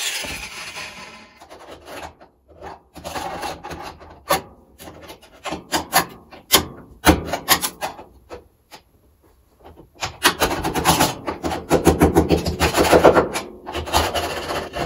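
Hand file rasping on the cut edge of a steel body panel: scattered single strokes at first, then a quick run of back-and-forth strokes about ten seconds in.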